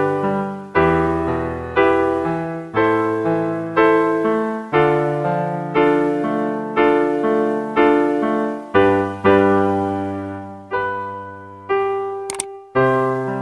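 Instrumental piano backing of a karaoke track with no vocal line: chords struck about once a second, each left to ring and fade, spacing out toward the end. A brief click near the end.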